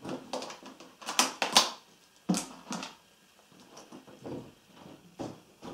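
Sharp small clicks and plastic rattles from hands working at the inlet solenoid valve wiring, unclipping crocodile-clip test leads and pushing the spade connectors back onto the valve terminals. There is a quick cluster of clicks about a second in, one more a little after, and another near the end.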